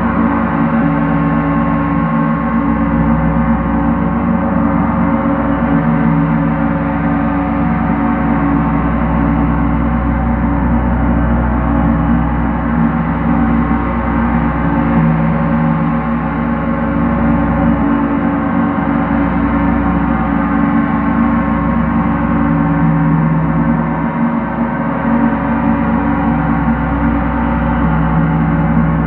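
Large gong played continuously with two soft felt mallets: a steady wash of many overlapping ringing tones, with no single strike standing out and the whole sound swelling only gently.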